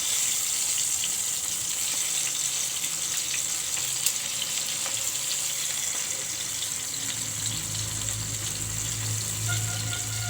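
Stuffed brinjals frying in hot oil in a pan, a steady sizzling hiss. A low hum joins in about seven seconds in.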